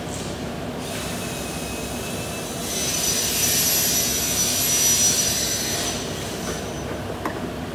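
Steady workshop hum, with a loud hiss of rushing air carrying a faint high whistle for about three seconds in the middle.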